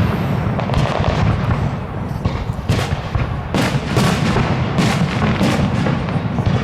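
Fireworks display: a rapid, continuous barrage of bangs from bursting shells over a steady low rumble.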